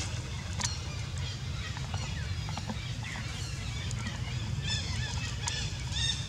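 Short, high-pitched squealing calls from young macaques, several in quick succession near the end, over a steady low rumble.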